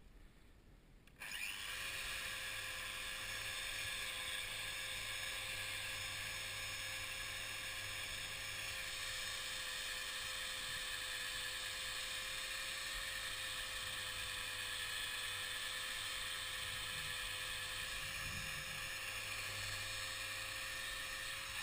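Electric sander switched on about a second in and running steadily, sanding down repair tape on the fiberglass nacelle.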